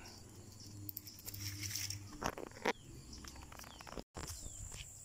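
Faint outdoor ambience with insects chirping steadily, broken by some rustling and two sharp clicks in the middle.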